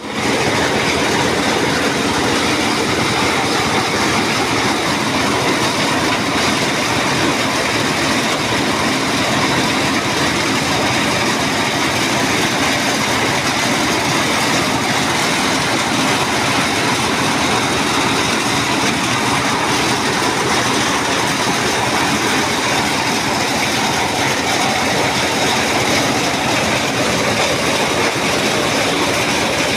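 Corn milling machine running, a loud, steady, unbroken mechanical noise.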